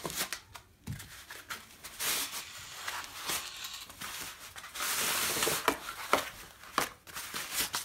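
Plastic packaging and cardboard rustling and crinkling as parts are lifted out of a shipping box, with a few light knocks; the rustling comes in two longer stretches, one about two seconds in and one about five seconds in.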